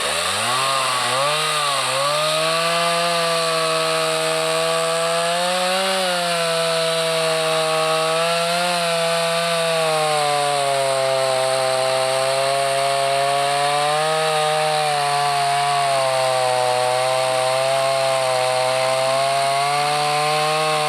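Gas chainsaw running at high throttle, cutting wood. Its engine pitch climbs right at the start, wavers up and down as the chain meets load, and falls off near the end.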